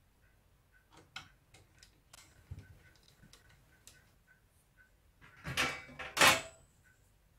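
The vented sheet-metal bottom cover of a VCR being fitted onto its chassis: light clicks and scrapes, then two loud metallic clanks less than a second apart near the end as it is pressed into place, the second ringing briefly. A faint steady ticking, about two a second, runs underneath.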